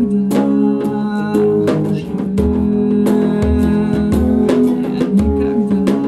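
Guitar strummed in an instrumental passage between verses, with sustained chords, a steady rhythm and pulsing low notes.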